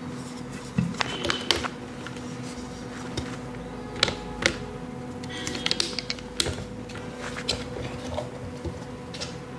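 Plastic clicks and snaps from an electric kettle's handle as its cover panel is prised off and handled to reach the power switch. There is a quick cluster of clicks about a second in, two sharp ones around four seconds, and a flurry near six seconds, over a steady faint hum.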